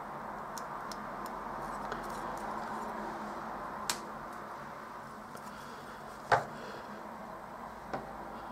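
Hands handling a printed circuit board while fitting capacitors into it: a few short, light clicks, the sharpest about six seconds in, over a steady background hiss.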